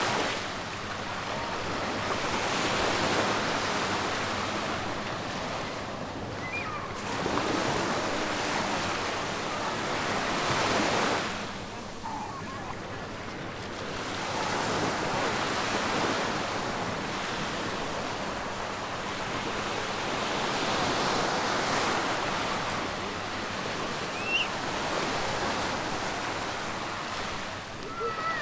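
Waves of the Adriatic Sea breaking and washing up on a sandy beach. The surf rises and falls in slow swells, several seconds apart.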